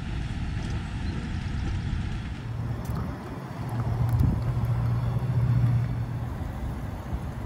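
A low engine hum from a motor vehicle over a constant outdoor rush of noise. The hum comes in about a third of the way through, is loudest in the middle and fades near the end.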